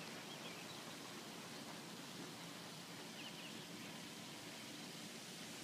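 Faint steady outdoor hiss, with a few faint bird chirps near the start and about three seconds in.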